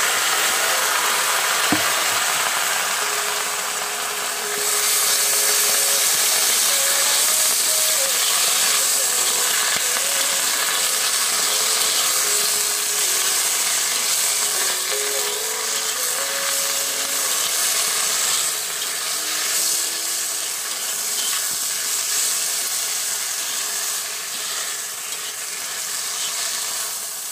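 Leafy greens sizzling in a hot wok as they are stir-fried, with a metal spatula scraping and tossing them against the pan. The sizzle gets louder about four seconds in.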